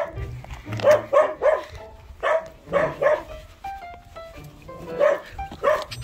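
Mixed-breed puppy barking in short high yips, about eight of them in three quick bursts of two or three.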